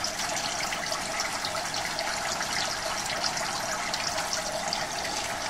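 Steady rushing and trickling of water in a fish-farm recirculation tank: a continuous hiss with fine fizzing crackle.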